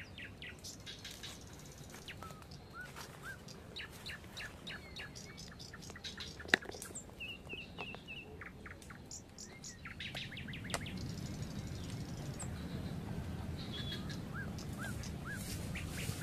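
Several birds chirping and calling, with short rising whistles and a quick run of repeated notes. There is a single sharp click about six and a half seconds in, and a low rumble builds in the second half.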